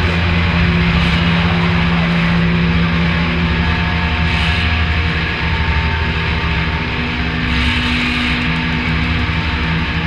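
Loud, heavily distorted droning music: a wall of held low notes with a dense noisy haze above them and no clear beat.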